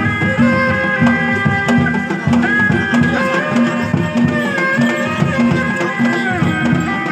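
Traditional Sundanese folk music: drums beat a steady quick pulse, about two to three strokes a second, under a high held melody line that wavers and bends in pitch.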